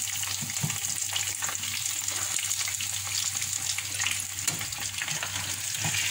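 Breadcrumb-coated chicken fillets deep-frying in hot oil in a pan: a steady sizzle full of small crackles.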